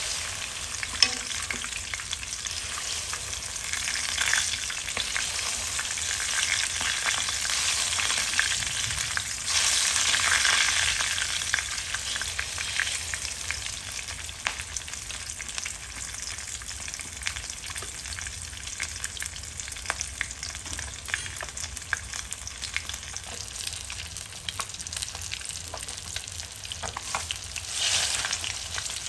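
Whole silver barb shallow-frying in hot oil in a wok, sizzling and crackling steadily. The sizzle swells louder at times as a ladle pours the hot oil over the fish.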